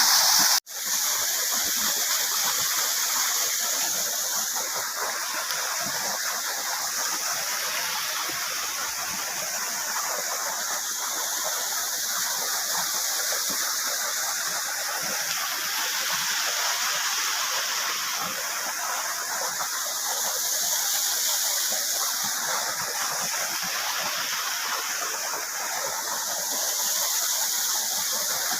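Waterfall: a steady hiss of falling, rushing water, with little low rumble. The sound drops out for a moment about half a second in.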